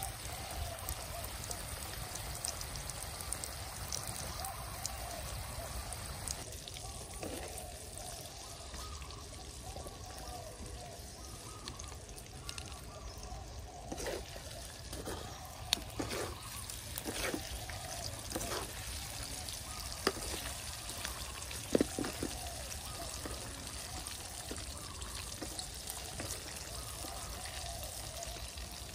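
Oil sizzling and bubbling steadily in a small wok of frying spiders. Through the middle stretch a spatula knocks and scrapes against the pan several times as the spiders are stirred.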